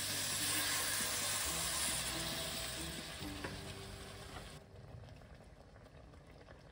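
Vegetables and bacon sizzling in a hot pot as coconut milk is poured in. The sizzle fades as the cold liquid covers the pan, then drops away sharply about four and a half seconds in.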